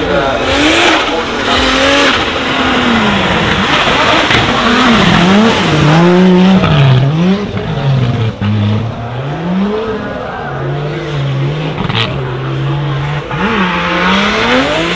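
Toyota GR Supra's swapped 2JZ turbocharged straight-six being revved up and down hard as the car drifts, with tyre squeal and skidding under it. There is a single sharp crack late on.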